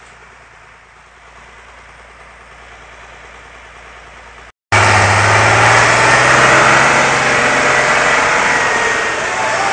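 Diesel engine of a 170 hp Schlüter forestry tractor running as it works a dozer blade through the forest floor. It is fairly faint for the first half. After a brief break about halfway, it is heard much louder and close up as a steady low engine drone.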